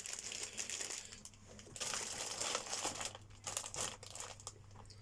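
Plastic or cardboard kit packaging crinkling as it is handled, in irregular bursts, over a faint steady low hum.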